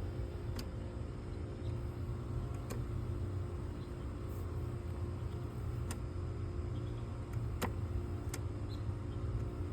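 BMW E30's in-tank electric fuel pump running steadily, powered through a jumper in the fuel pump relay socket, heard faintly as a constant hum over a low rumble, with a few faint clicks. The pump running shows it gets power and works with the relay bypassed.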